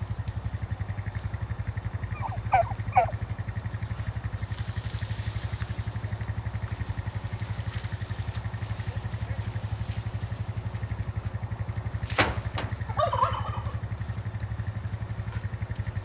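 A small engine running steadily throughout, with short calls from farm poultry coming in small groups of two or three a few times. There is a sharp knock about twelve seconds in.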